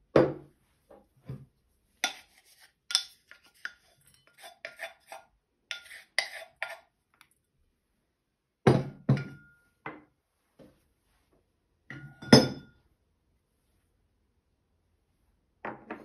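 Brass mortar and pestle crushing walnuts and garlic: irregular metal knocks and clinks, some leaving a short ringing tone from the brass. The loudest strikes come about nine and twelve seconds in.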